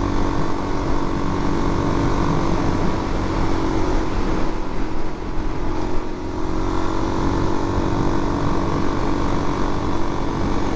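Suzuki DR-Z400's single-cylinder four-stroke engine running at a steady cruise, with wind and road noise on the microphone. The level dips briefly about five seconds in.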